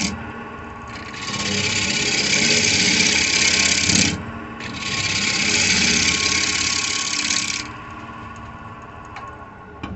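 A 5/8 bowl gouge cutting a spinning spalted birch bowl blank on a wood lathe: a loud hissing cut in two long passes of about three seconds each, with a short break between them. The lathe motor hums steadily under the cuts and on its own for the last couple of seconds.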